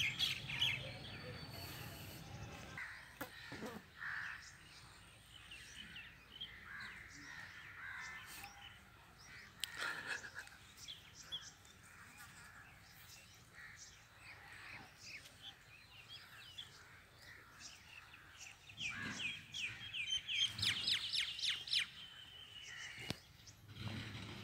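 Birds chirping and calling, with a quick run of loud repeated chirps near the end.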